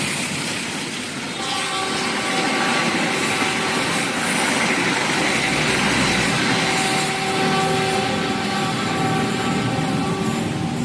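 Argo Parahyangan passenger train running at speed, a steady rumble and rail noise with a faint steady tone above it.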